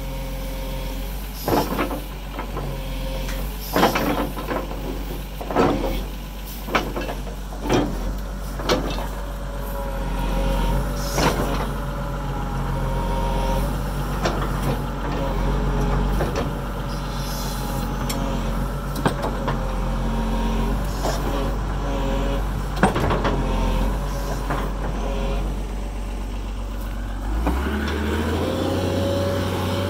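Kobelco SK250LC excavator's diesel engine running with a steady low hum, while sharp metallic clanks and knocks come at irregular intervals over the first two-thirds. Near the end the engine note steps up with a rising whine as the machine comes under load.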